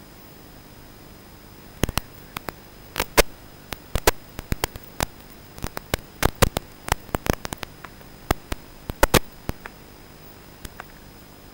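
Static from an analog FPV video receiver: a steady hiss with a faint steady high tone, broken by a dense, irregular run of sharp crackles and pops from about two seconds in until near the end.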